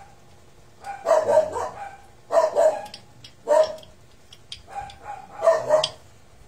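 A dog barking repeatedly, about half a dozen short barks spread over a few seconds.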